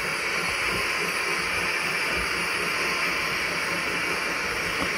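Steady steam hiss from the sound module of a gauge 1 model of DB class 44 steam locomotive 044 404-2, running light without a train, with a low rumble underneath.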